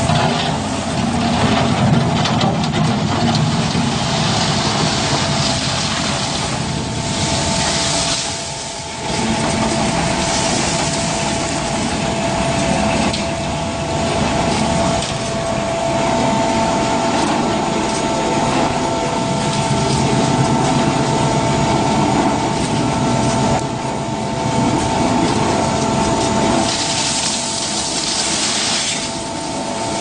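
Concrete mixer with pump running: a steady mechanical din with two constant whining tones, easing off briefly about a third of the way in and again near the end.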